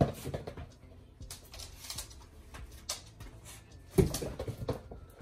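A small dog playing with plush toys on a hallway runner and wooden floor: rustling, scuffing and knocking as she shakes and tosses them. There is a loud thump right at the start and another about four seconds in.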